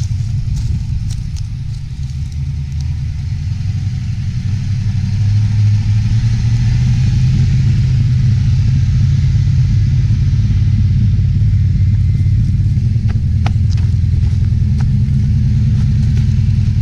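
LS1 V8-swapped Nissan Patrol climbing a steep dirt track, its engine running steadily under load and growing louder as it draws near. A few sharp clicks near the end.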